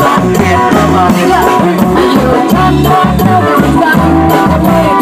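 Thai street brass band (taewong) playing lively dance music, with a stepping bass line, melody lines over it and a steady beat of drum and cymbal strikes.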